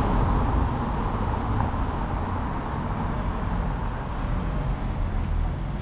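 Steady road traffic noise from cars on the road alongside: a continuous low rumble of engines and tyres.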